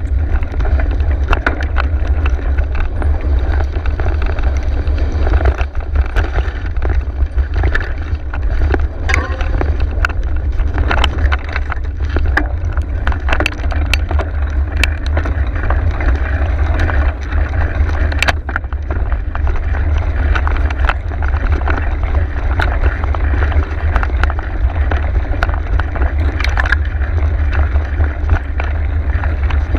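Mountain bike riding a singletrack trail: a steady wind rumble on the microphone, rough tyre-on-ground noise, and frequent sharp rattles and knocks from the bike over bumps.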